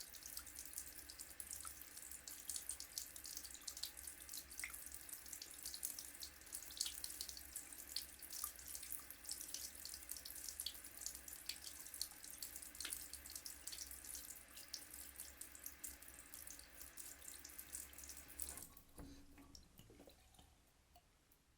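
Water running from a tap in a steady stream with many irregular splashes, cutting off suddenly near the end.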